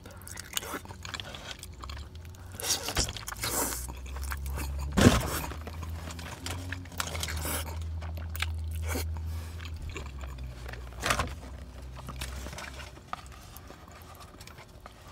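Close-up wet chewing and slurping of chewy Korean rice cakes (tteokbokki) coated in sauce and stretchy melted cheese, with short smacks and clicks of the mouth.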